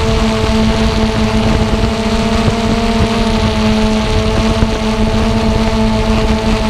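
Xiro Explorer G quadcopter's motors and propellers whining steadily while it hovers low, close up as heard from the camera it carries, several steady pitched tones over a rushing noise.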